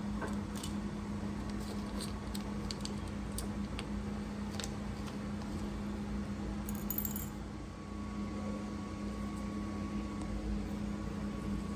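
Scattered small clicks and clinks from handling a marinade injector and its cup of marinade, mostly in the first five seconds, with a brief high hiss or rattle about seven seconds in. A steady low hum runs underneath.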